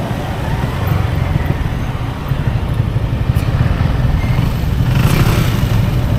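Yamaha XSR 155's single-cylinder engine running steadily at low speed, heard from the saddle, with a short rush of noise about five seconds in.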